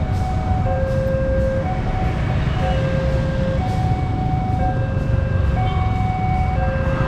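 Railway level-crossing warning alarm sounding its repeating two-tone signal, a low tone and a higher tone alternating, each held about a second. Underneath is the steady rumble of a train running past.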